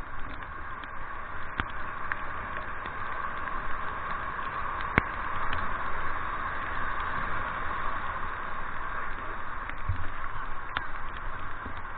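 River water rushing and splashing through shallow rapids around an inflatable raft, a steady rushing noise, with one sharp click about five seconds in.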